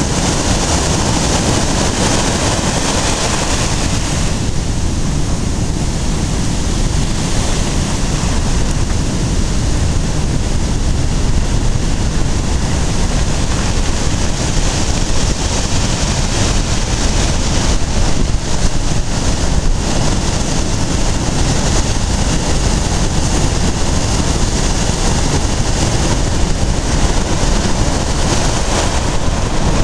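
Storm surf on a sand beach in a very rough sea: waves breaking and washing up the shore in foam, a steady loud rush, with gale wind buffeting the microphone as a low rumble.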